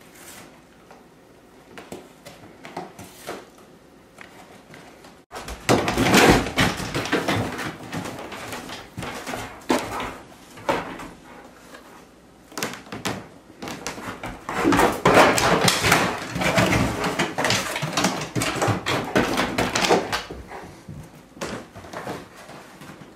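A Bernese Mountain Dog tearing and chewing a cardboard box: a few faint clicks at first, then from about five seconds in a loud, dense run of ripping and rustling cardboard that comes in stretches and dies down near the end.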